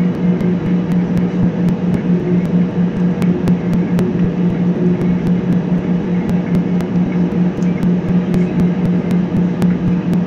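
Airbus A320 heard from inside the passenger cabin while taxiing on the ground: the jet engines run at low power as a steady droning hum that beats and pulses slightly, over a constant rush of cabin and engine noise.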